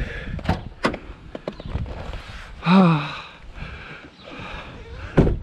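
Sharp clicks and knocks of something being handled, a man's short grunt-like vocal sound about halfway through, and a heavy thump near the end.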